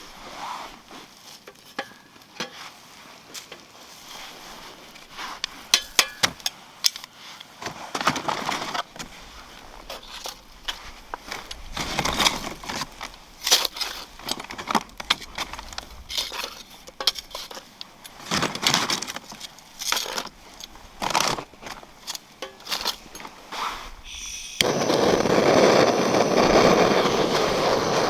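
Scattered clinks and knocks of cooking gear, metal and glass being handled. A loud, steady rushing noise begins a few seconds before the end.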